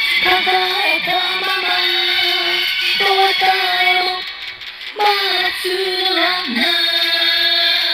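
Japanese pop song: a high voice sings two lyric lines over backing music, with a brief dip in the music about four seconds in, between the lines.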